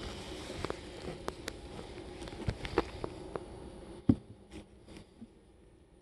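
Wooden beehive parts being handled: a string of light clicks and knocks, with one louder thump about four seconds in.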